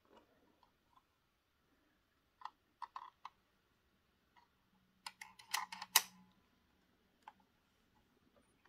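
Light plastic clicks and taps from a model railway double-deck coach being handled and turned in the hands: a few taps about two and a half to three seconds in, then a quick run of sharper clicks around five to six seconds in, the loudest, and one more click a little later.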